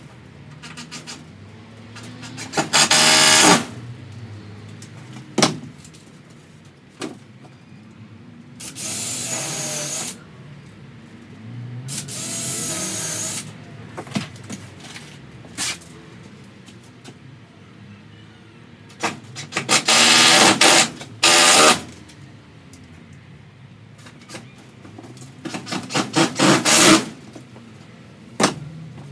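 Cordless drill-driver running in about five short bursts, some with quick trigger taps, as screws are driven or holes drilled into the caravan's timber wall framing; light knocks and clicks of handling between bursts.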